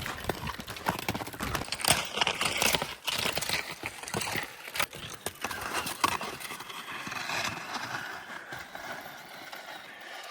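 Rhythmic crunching steps on firm snow, a sharp crunch with each stride, fading a little near the end.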